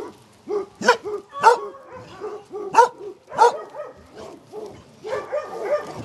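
Dogs barking in outdoor kennel pens: a run of sharp, separate barks, then more dogs barking over one another from about five seconds in.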